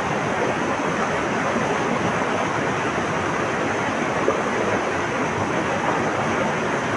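Flowing water rushing steadily and evenly.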